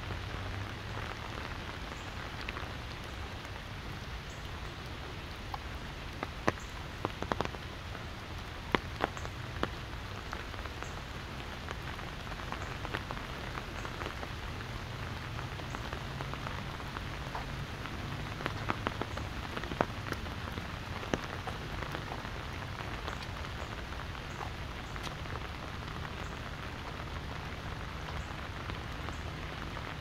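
Steady rain falling, with heavy drops tapping sharply on an umbrella overhead. The taps come in two flurries, one several seconds in and another about two-thirds of the way through.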